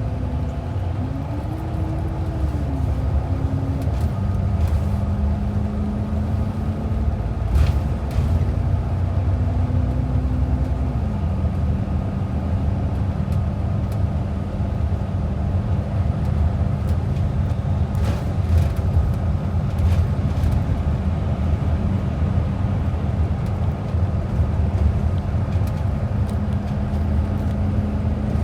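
Transit bus heard from inside the cabin while under way: a steady low engine-and-road rumble. The engine note rises and drops a few times in the first dozen seconds, then holds steady, with a few brief rattles.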